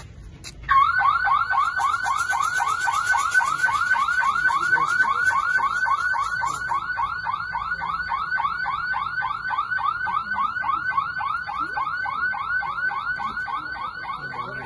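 Electronic security siren of a Godrej Smart Fog anti-intrusion fogging system sounding: a loud, fast warbling tone, about five sweeps a second, that starts abruptly near the start and keeps going. A high hiss runs under it for the first several seconds as the unit discharges its fog, then stops.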